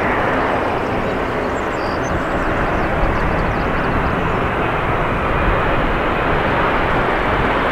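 Boeing 787-9 Dreamliner's twin turbofan engines on final approach: a steady jet engine rush that grows slightly louder as the airliner descends toward touchdown.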